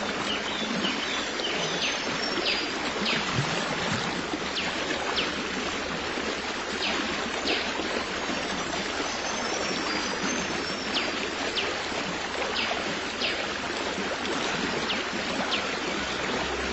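Steady rush of a flowing stream, with short, high bird chirps that fall in pitch, repeated every second or so.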